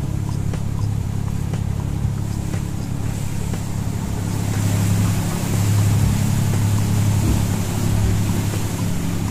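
A tour boat's engine droning steadily under the rush of wind and water, growing a little louder about halfway through.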